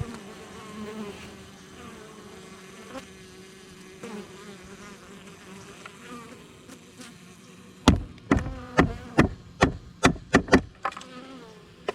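Honeybees buzzing steadily around the hive entrance. About eight seconds in comes a quick run of about ten sharp knocks on the hive.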